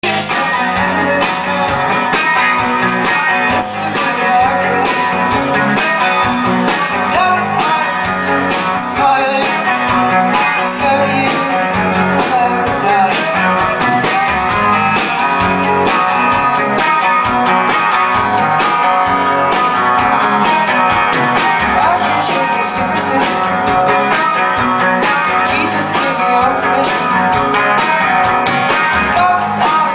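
Live indie rock band playing, recorded from the audience: a woman singing over guitar with a steady beat.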